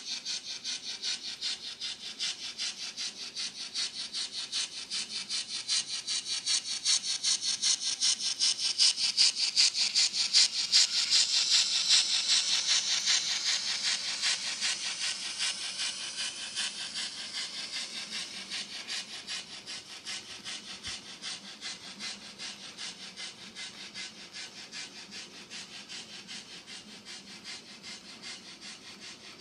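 Model railway goods wagons rolling along the track, their wheels clicking over the rail joints in a steady rhythm over a high rolling hiss. It grows louder to a peak about ten seconds in, then slowly fades as the train draws away.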